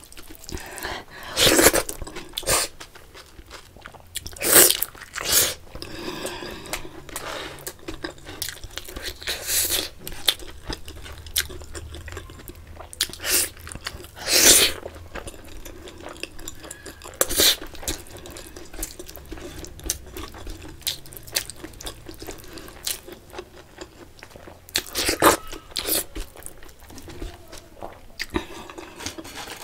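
Close-miked eating sounds: a person chewing a mouthful of rice, curry and fried food, with about ten sharp crunches and mouth smacks at irregular intervals.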